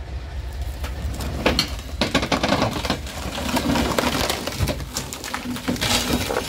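A derailed coach's bogie shifting on wooden packing during rerailing: repeated cracks, creaks and clicks of splintering wood and metal over a low steady rumble.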